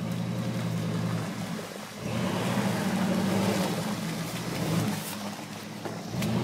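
A lifted 4x4 truck's engine running under load as it crawls through deep mud, a steady low engine note that dips briefly and then grows louder about two seconds in.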